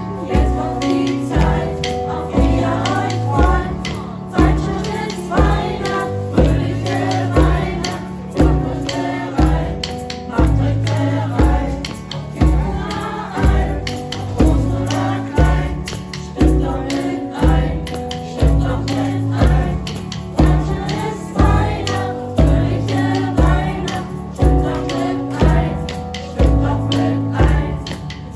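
A group of voices singing a song together in chorus over accompaniment with a steady, regular beat.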